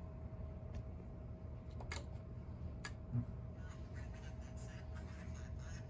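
Three light clicks and a single low thump about three seconds in, as a 1988 Toyota AM/FM cassette car stereo is switched on; the thump is its speakers popping at power-up. A steady low hum runs underneath.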